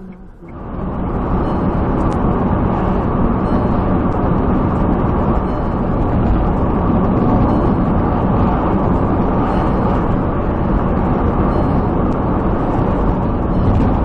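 Steady road and engine noise of a moving car, heard from inside the cabin through its dashcam. It starts suddenly about half a second in and holds level.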